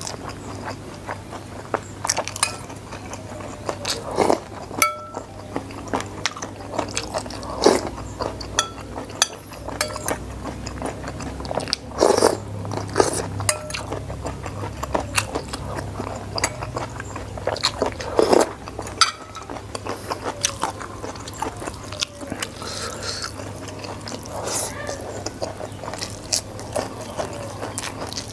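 Close-up eating sounds: chewing and crunching on fried corn fritters, with irregular wet clicks and crackles, and fingers scraping food through sambal in a stone mortar. A steady low hum runs underneath.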